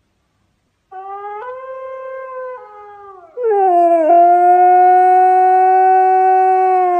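Husky howling: a quieter wavering howl starts about a second in, then a loud, long howl begins about three and a half seconds in, sliding down in pitch and then held steady.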